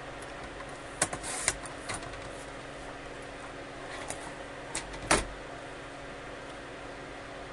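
Paper trimmer and cardstock being handled: a few clicks and a brief scraping slide about a second in, then more small clicks and a knock just after five seconds as the trimmer is moved, over a faint steady hum.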